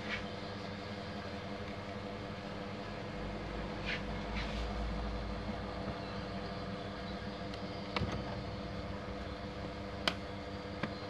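Plastic parts of a Konica Minolta Bizhub copier's drum unit being handled, with two short scrapes about four seconds in and a few sharp clicks later on, over a steady background hum.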